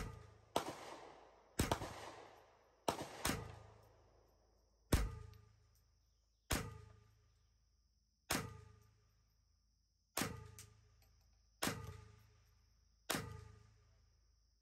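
Ruger 10/22 .22 LR semi-automatic target rifle firing a string of about eleven shots. The first few come quickly, then roughly one every one and a half to two seconds, and each crack trails off in a short echo.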